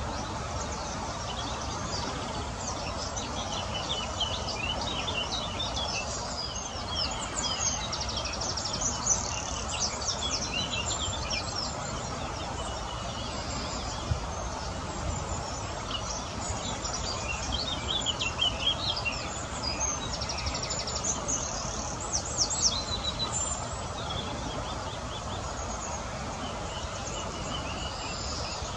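Small birds chirping and singing in bursts, with a few rapid trills, over a steady background hiss and rumble. The chirping is busiest in the middle of the stretch.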